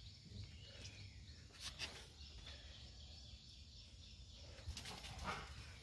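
Quiet outdoor ambience: faint birds chirping in the background over a low hum of background noise, with a few brief rustles or taps about two seconds in and again near the end.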